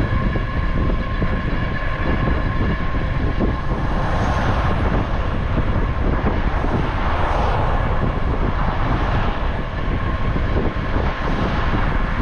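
Wind buffeting a cyclist's camera microphone while riding in traffic, with motor vehicles passing; two passes swell up about four and seven seconds in.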